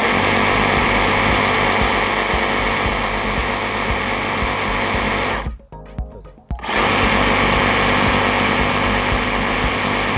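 Makita JR002G 40V cordless reciprocating saw running with no load: a steady motor whine over a low hum. It cuts off about five and a half seconds in and starts again about a second later.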